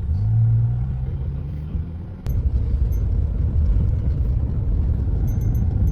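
Car road noise heard inside the cabin while driving: a steady low hum, then a sharp click about two seconds in and a louder, rougher low rumble after it.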